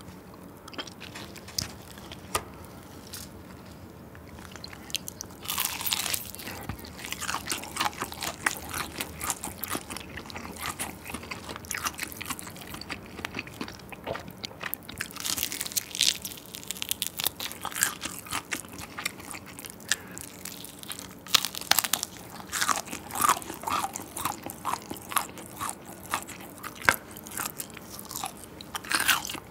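Crispy fried chicken drumstick being bitten into and chewed, its crumbly batter crunching. Quiet for the first few seconds, then dense crunching and chewing continue to the end.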